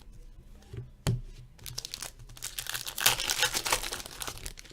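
A trading card pack's foil wrapper being torn open and crinkled, a dense crackling that builds to its loudest in the second half. A single knock comes about a second in.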